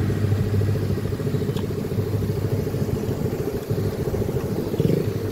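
Motorcycle engine running steadily at a low pitch while being ridden.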